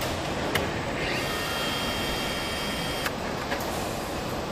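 Car assembly-line noise: a steady hum of machinery with a few sharp clicks, and a high whine of a power tool that starts about a second in and cuts off with a click about two seconds later.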